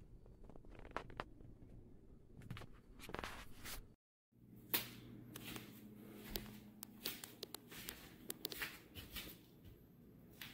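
Faint scattered clicks and rustling handling noises in a small room, over a low hum. The sound cuts out completely for a moment about four seconds in, then the clicks resume, one louder than the rest.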